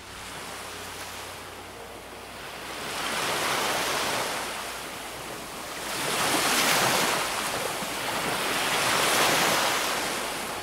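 Ocean waves rolling in and breaking, in three slow surges that swell and fade.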